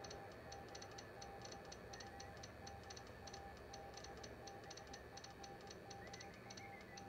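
Faint Morse code tone beeping on and off in dots and dashes at one steady pitch, over a fast, even ticking.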